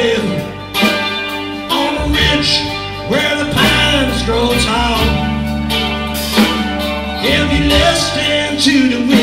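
Live trio of electric guitar, bass guitar and drum kit playing a country-rock song with a steady beat, a pitched lead line bending up and down over sustained bass notes.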